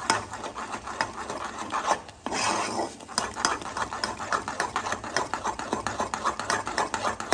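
Instant mashed potato being stirred briskly with a metal utensil in a nonstick saucepan as it thickens: a fast run of scraping, squelching strokes against the pan, with a brief pause about two seconds in.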